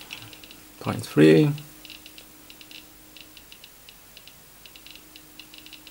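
Geiger counter built around a Soviet-era STS Geiger-Müller tube, clicking irregularly, several clicks a second, as it detects radiation from a vintage watch case back at roughly 1.3 microsieverts per hour, well above ambient.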